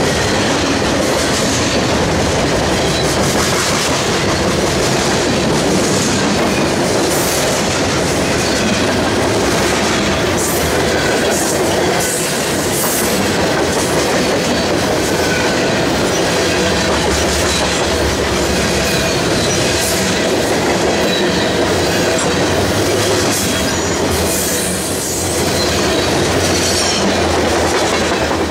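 Freight train's boxcars and covered hopper cars rolling past close by: a loud, steady rumble and clatter of steel wheels on the rails, with brief wheel squeals now and then.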